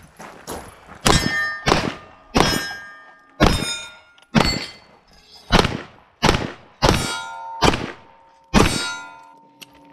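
A string of about ten pistol shots at steel targets, a little under a second apart, each hit answered by the clang of the steel plate ringing. The last plate rings on for more than a second.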